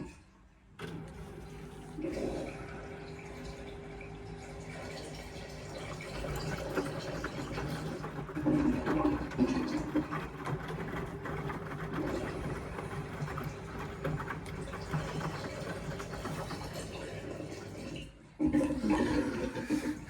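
Indesit washing machine mid-cycle, with water rushing through it over a steady machine hum.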